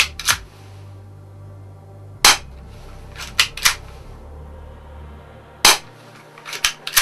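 Spring-powered HA117 BB pistol cocked and fired: the slide racked back with a couple of clicks, a sharp snap of a shot about two seconds in, the slide racked again, a second shot a little over three seconds later, then more racking clicks near the end. It is a single-shot spring pistol with a stiff spring that has to be cocked for every shot.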